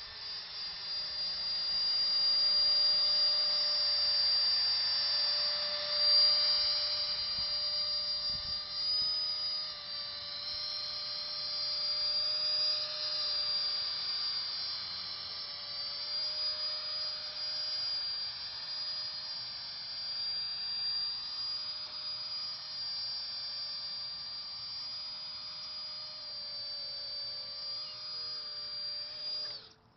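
High-pitched electric motor whine of a small thrust-vectoring nano drone in flight, steady with its pitch stepping slightly up and down as the throttle changes. It cuts off abruptly near the end.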